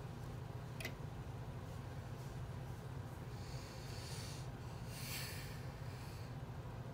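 A single sharp click about a second in, then two spells of paper rustling as a hand slides over the Lego instruction sheet, over a steady low hum.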